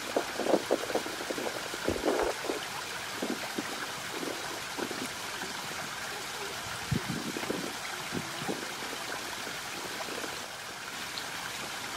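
Shallow, stony mountain river running steadily over gravel, with scattered short dull bumps over the first few seconds and again around seven to eight seconds.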